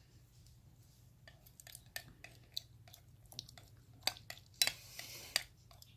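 A spoon stirring glue with laundry-detergent activator as it begins to set into slime: scattered light clicks of the spoon against the container and soft wet squishing. A short rustling hiss comes about five seconds in.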